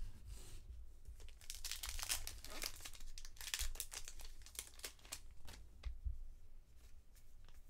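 Wrapper of a Bowman baseball card pack torn open and crinkled by hand: a run of crackles and rips, busiest from about one and a half to three and a half seconds in, then thinning out.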